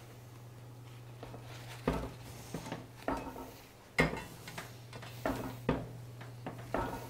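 Stainless steel colander knocking and clattering against the chopping board as hands press grated courgette and sweet potato down on a paper towel to squeeze the water out: about seven irregular knocks, the loudest about four seconds in. A low steady hum runs underneath.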